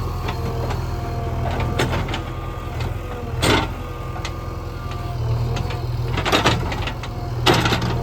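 Diesel engine of a JCB 3DX backhoe loader running steadily under work, with three short bursts of noise from the digging and loading, one a little before halfway and two near the end.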